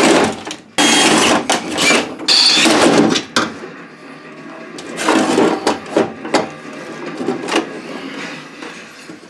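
Cordless drill drilling out the aluminum rivets that hold a car's power window motor to the steel door panel, running in several short loud bursts for the first few seconds. After that come quieter, irregular clunks and rattles of metal parts being handled inside the door.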